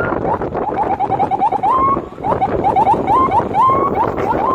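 Electronic vehicle siren chirping in quick rising yelps, several a second, with a few longer rising whoops, over road and engine noise heard from inside a moving car.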